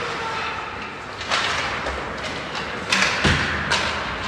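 Ice hockey play along the boards: sharp clacks of sticks and puck, and a heavy thud against the boards about three seconds in.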